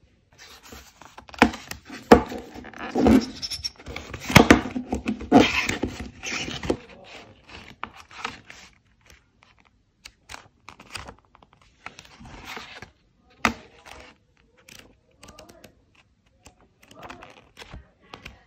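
Packaging being handled, with a run of plastic scraping, crinkling and clicks over the first several seconds. After that come quieter, scattered rustles and taps as the glossy pages of a photobook are turned.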